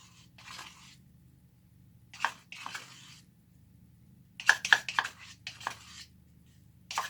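Wet white Portland cement being scraped out of a measuring cup with a palette knife, in a few short spells of scraping strokes with pauses between.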